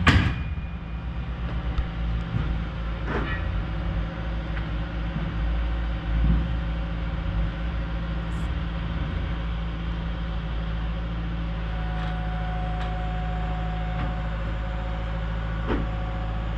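Diesel engine of a 120-size excavator running steadily while it holds and lowers a truss, with a sharp knock at the start and a few lighter clunks later.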